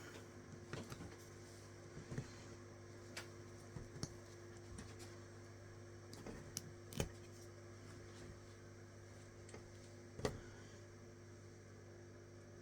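Faint, scattered small clicks and taps of latch hook work, the metal hook and yarn being worked through the mesh canvas, over a steady low hum. The loudest clicks come about seven and ten seconds in.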